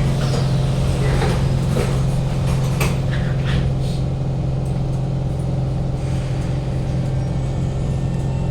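Steady, loud drone inside a Kawasaki Heavy Industries C151 train carriage, from its air-conditioning and ventilation, with several sharp knocks and rattles between about one and three seconds in.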